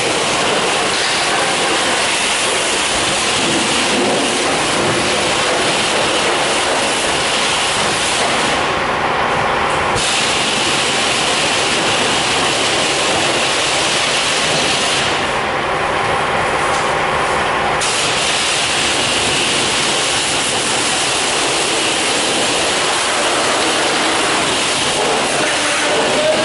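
High-pressure washer wands spraying water onto a semi truck, a loud steady hiss and rush of water. Its highest hiss thins out briefly twice.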